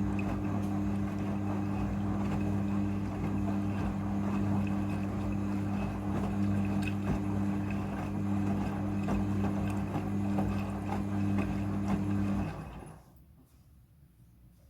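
Front-loading washing machine during its rinse, water rushing through it over a steady electric hum from its pump. The hum and the water cut off suddenly near the end.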